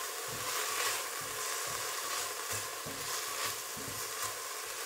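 Diced onion, apple and ground spices sizzling in hot lard in a stainless steel pot. A plastic spatula stirs them with repeated short scrapes against the pot.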